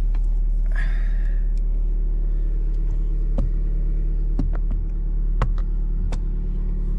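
A steady low rumble inside a car, with a few sharp clicks and taps as a flashlight is picked up and handled.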